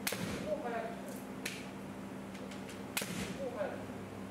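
Bamboo shinai cracking against kendo armour: three sharp strikes about a second and a half apart, with shouting voices between them.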